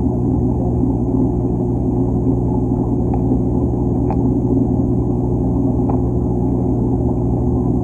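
A steady low hum throughout, with three faint, sharp clicks about three, four and six seconds in: a figure 8 puffer crunching the shells of ramshorn snails.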